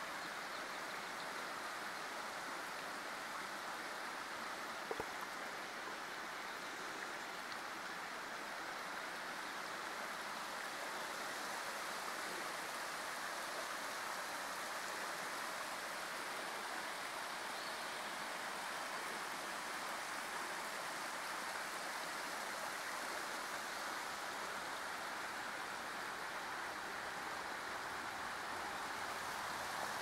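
Steady rushing of running water from a stream or small waterfall, even throughout, with one short click about five seconds in.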